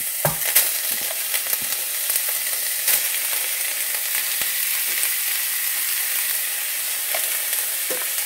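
Browned ground beef sizzling in a hot stainless steel skillet as it is spooned back into the pan, with a few short knocks of a silicone spatula against a glass measuring cup.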